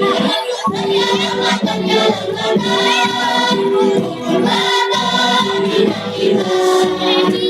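A children's choir of madrasah pupils singing together in held, steady phrases.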